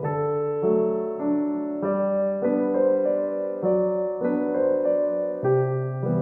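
Background music: a gentle piano or electric-piano melody with chords, notes struck about every half second.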